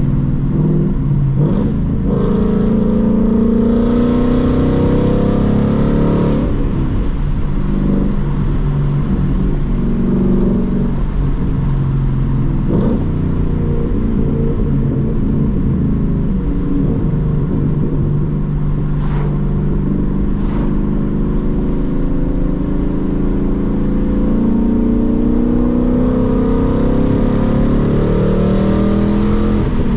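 Ford Mustang GT's 5.0 Coyote V8 running while driving, its engine note rising and falling as it accelerates and eases off, with a few brief clicks along the way.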